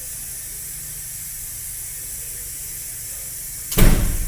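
Automotive A/C recovery-recharge machine charging refrigerant into the system: a steady hiss over a low hum. About four seconds in comes one sudden loud thump.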